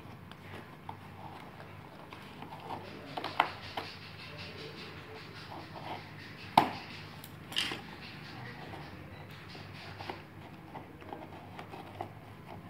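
Scissors and hands working on a cardboard box, cutting its packing tape: scattered clicks, rustles and scrapes, with a sharp knock about six and a half seconds in and a short scrape a second later.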